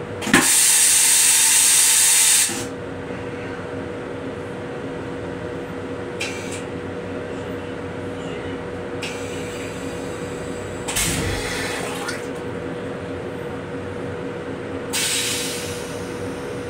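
Metro-North M7 railcar's stainless steel toilet flushing: a loud rushing hiss lasting about two seconds, then several shorter, fainter hisses. A steady hum from the railcar runs underneath.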